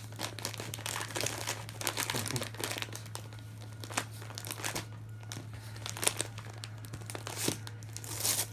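West Highland White Terrier crinkling, rustling and tearing wrapping paper with her muzzle, in irregular crackly spells, over a steady low hum.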